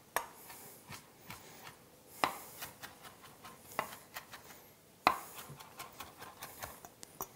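Chef's knife chopping fresh sage and rosemary on a wooden cutting board: an irregular run of light knocks of the blade on the wood, with a few sharper strikes about two and five seconds in.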